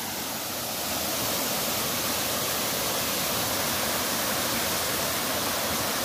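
Small waterfall cascading down rock steps, water rushing steadily, a little louder about a second in.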